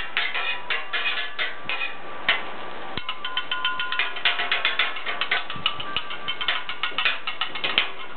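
Two metal spatulas chopping and scraping on a steel Blackstone flat-top griddle, breaking up clumps in a batch of fried rice. The clacking is sparse at first, then from about three seconds in becomes a fast clatter of several strikes a second.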